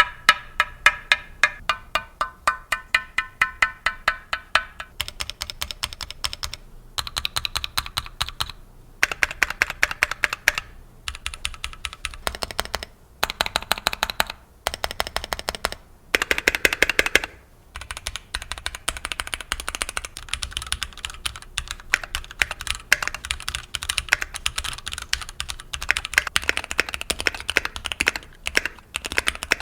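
Typing on a Keychron Q3 metal-cased, gasket-mount mechanical keyboard, with rapid keystroke clicks in bursts and short pauses between them. It is a sound demonstration of the board with its PCB taped and gasket pads fitted to cut case resonance.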